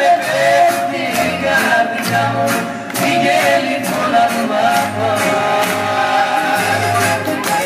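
Greek dance music playing with a steady beat, a sustained melody line and pulsing bass notes.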